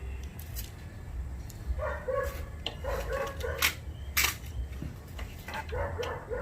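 A small dog whining and yipping in three short runs of quick high-pitched calls, among a few sharp clicks.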